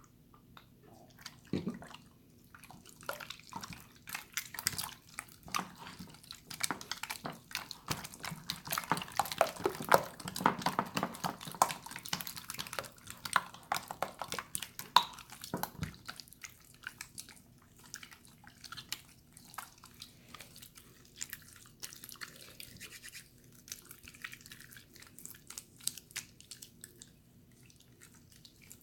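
Water slime being squished and worked by hand: a dense run of wet clicks and squelches, busiest in the middle and thinning out toward the end.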